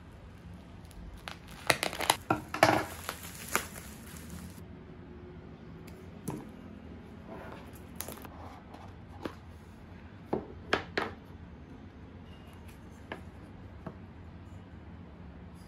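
Scissors snipping through plastic packaging film, with the wrap crinkling and tearing in a dense run of loud rustles over the first few seconds. Then scattered taps and short rustles as a small cardboard box is handled and its lid lifted off.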